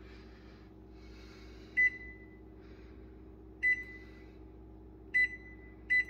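Frigidaire over-the-range microwave's keypad beeping as the time is entered: four short, high beeps, the first two about two seconds apart and the last two close together, over a faint steady hum.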